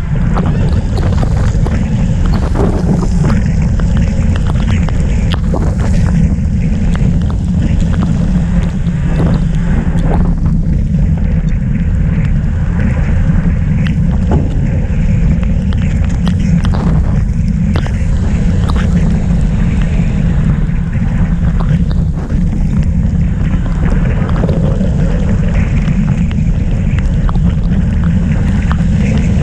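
Wind buffeting the microphone of an action camera on a racing bicycle at speed, a steady loud rumble, with a hiss of rain and spray off the wet road.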